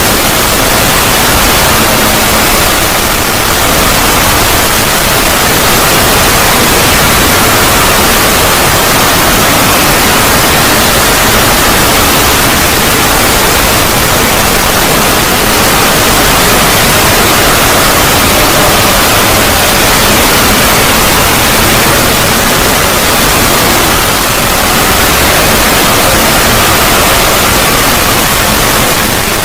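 Loud, steady static hiss, like white noise, with no tune or rhythm: the drawn-out noise of an edited 'void' logo sound effect.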